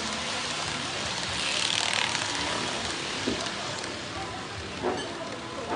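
HO-gauge model Doctor Yellow shinkansen running on the track: a steady rolling hiss of metal wheels on the rails, with a couple of sharp clicks in the second half.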